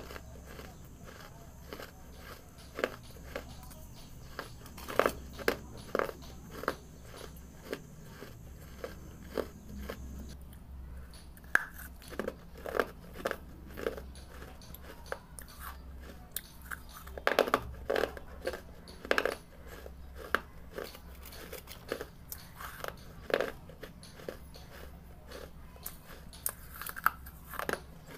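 A person biting and chewing dry baked red clay chunks close to the microphone: crisp, irregular crunches, often several in quick clusters, over a steady low hum.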